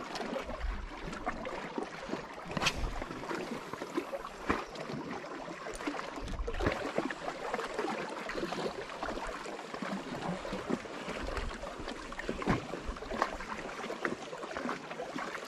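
Small sea waves lapping and splashing against a rocky shoreline, an even wash of water noise broken by small irregular splashes.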